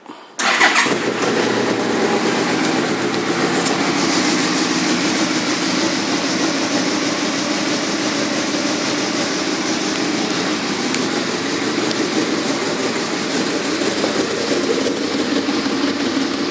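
2007 Yamaha Royal Star Venture's V4 engine started on the electric starter about half a second in, catching at once, then idling steadily.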